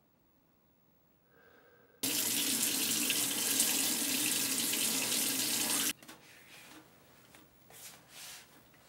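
A tap running hard into a sink, turned on about two seconds in and shut off sharply about four seconds later, followed by faint splashing and drips as water is splashed on a face.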